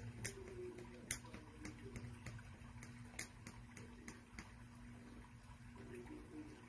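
Faint, irregular ticks and scratches, several a second, from a pointed hand tool picking at the edge of a fabric square to fray it. A steady low hum runs underneath.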